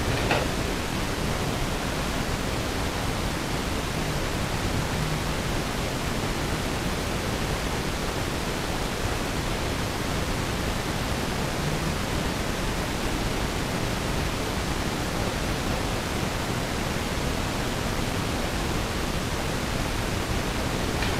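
Steady, even hiss of a recording's noise floor turned up loud, with a single brief knock about a third of a second in, which the investigators present as something moving in the empty room.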